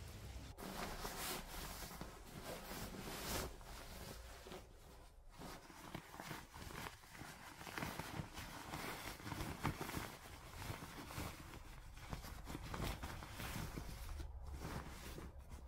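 Bedding rustling and swishing in irregular bursts as a duvet cover is handled, pulled and spread out over a bed.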